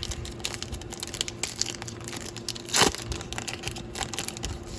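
A plastic-foil trading card pack being crinkled and torn open, with a louder rip of the wrapper about three seconds in.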